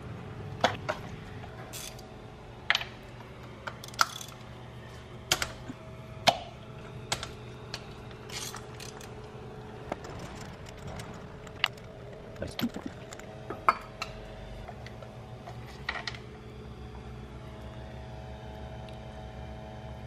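Hand tools clicking and clinking on metal in irregular single knocks, with a short cluster about two-thirds of the way through, as spark plugs are taken out of the engine. A steady low hum runs underneath.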